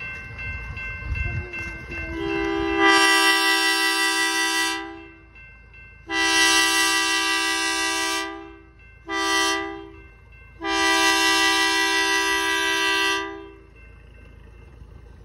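Locomotive horn sounding the grade-crossing signal as the train nears the crossing: two long blasts, one short and a final long one. Each blast is a steady chord of several notes.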